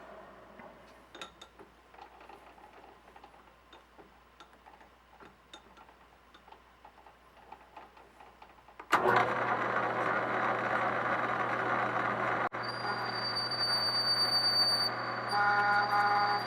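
Faint clicks and handling for about nine seconds, then a metal lathe starts abruptly and runs with a steady low hum and a high gear whine, in back gear. Near the end a pulsing squeal joins it as the parting tool cuts into the steel knob.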